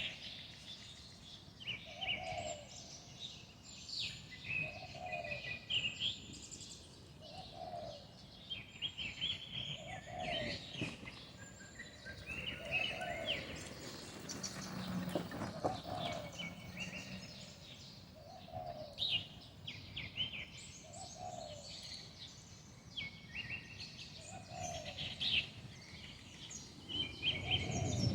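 Birds chirping and trilling in short high phrases, with a low call repeating about every two seconds.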